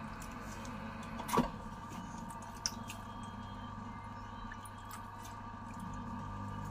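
Potter's wheel spinning with a steady hum while wet hands squelch and slide on a clay pot being thrown. There is a brief loud swish about a second and a half in and a sharp click near three seconds.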